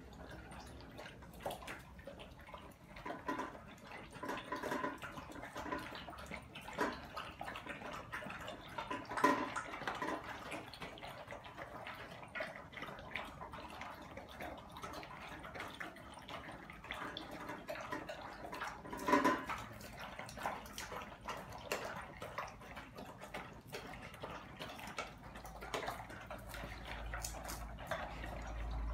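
Dogs eating from stainless steel bowls on a tiled floor: many small wet clicks and crunches of chewing and licking, with a few louder clanks against the bowls.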